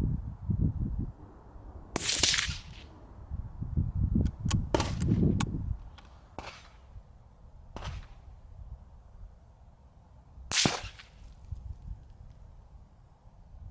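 .17 HMR rimfire rifle fired through a Freyr & Devik suppressor: two sharp shots about eight and a half seconds apart, the second the loudest. Several fainter clicks fall between them, over a low rumble.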